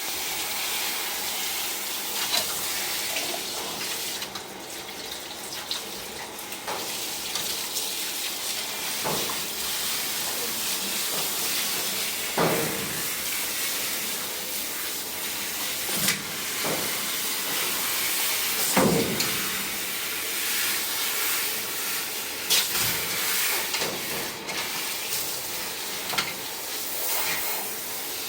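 Running water spraying steadily onto a Shiba Inu being washed. Several short sudden sounds break through the spray, among them the dog's sneezes.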